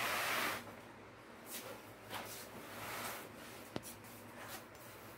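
Rustling and swishing of a fabric backpack being handled and pulled open, loudest at the very start, with softer swishes after. A single sharp click near the end.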